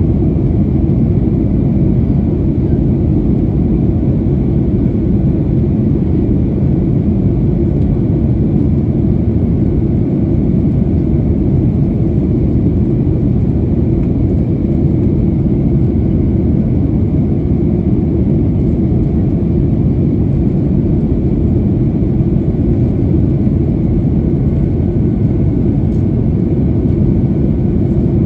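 Steady cabin noise of a Boeing 737-900ER heard inside the cabin: the CFM56-7B engines and rushing air blend into an even, low rumble that does not change.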